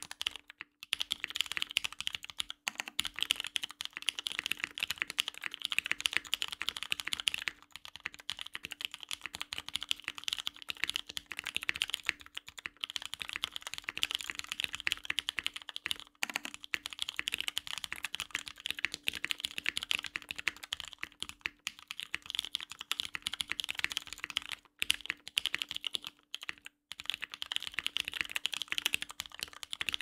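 Fast, continuous typing on a top-mount custom mechanical keyboard with an aluminium plate, vintage Cherry MX Brown tactile switches and GMK ABS keycaps: dense key clacks with a few brief pauses.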